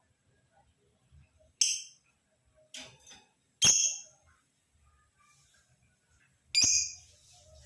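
Male lovebird giving short, shrill calls: three loud ones spread across the few seconds, with a fainter double call between the first two.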